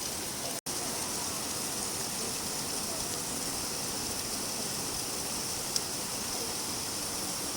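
Steady rainfall, an even hiss of falling rain. It cuts out for an instant under a second in, and a single sharp tick, like a drop striking something hard, sounds about six seconds in.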